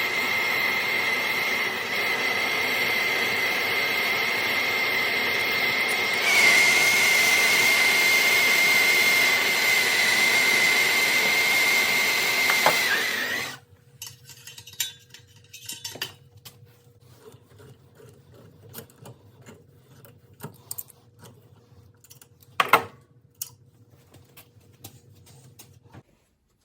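A power tool runs steadily with a high whine, gets louder about a third of the way in, and stops about halfway through. After it stops come scattered small taps and clicks of hand work, with one sharper click near the end.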